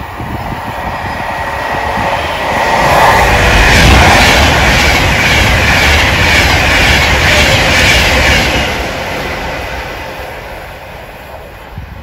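A train passing along the line. The rush of wheels on rail builds to its loudest about four seconds in, carries a regular clatter over the rail joints for several seconds, then fades away.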